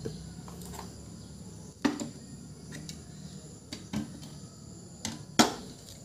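Sharp clicks and metallic taps from pliers being handled around a refrigerator compressor, about five scattered strikes, the loudest near the end.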